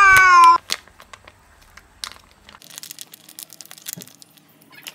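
A hungry cat's long meow, ending about half a second in with its pitch dropping. Then faint crinkling and clicks of a foil wet-food pouch being squeezed out by hand.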